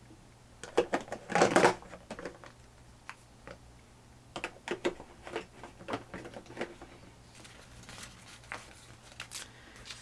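Scattered clicks, taps and light knocks of craft supplies and papers being handled on a tabletop, coming in short clusters with the loudest about a second in.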